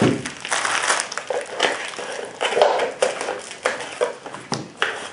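Bubble wrap crinkling and rustling as it is handled and lifted out of a cardboard box, with irregular rustles and several sharp clicks and bumps from the box and a paper insert.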